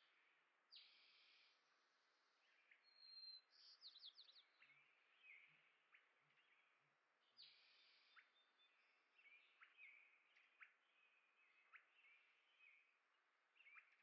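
Small songbirds chirping faintly: many short chirps and quick rising and falling calls one after another, over a faint steady outdoor hiss.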